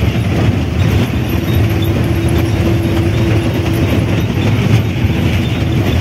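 Bus driving on an unpaved gravel mountain road: steady engine and road noise with a constant rattle of the rough surface. A steady whine sounds over it through the first half.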